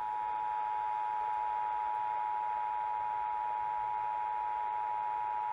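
Emergency Alert System attention signal: the steady two-tone alarm of 853 and 960 Hz sounded together, which announces an EAS message, here a Required Monthly Test. It holds unbroken at one pitch.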